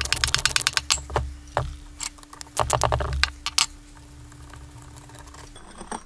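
Ratchet wrench clicking in quick runs as a rusted bolt is backed out of an old tractor starter: a run of about a second at the start, then another about two and a half seconds in, with a few single clicks between.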